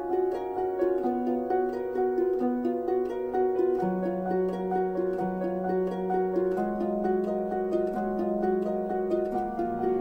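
Background music of quick, repeating short notes, joined about four seconds in by a held low note that steps to a new pitch every second or so.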